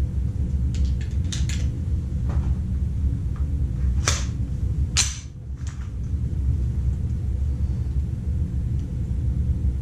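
Handling and loading clicks from a Roni G2-10 carbine (a Glock 20 in a carbine kit): a few light clicks early, then two sharper clacks about four and five seconds in, over a steady low rumble. No shot is fired.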